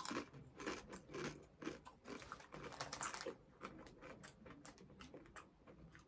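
Someone chewing Doritos Chilli Heatwave tortilla chips: a run of quiet, irregular crunches in the mouth.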